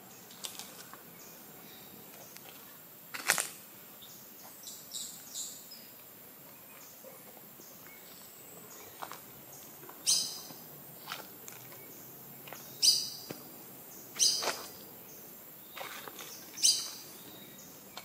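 Tropical rainforest ambience: a steady high-pitched insect drone, with a bird giving a loud, short call four times in the second half, every two to three seconds. A single sharp crack sounds about three seconds in.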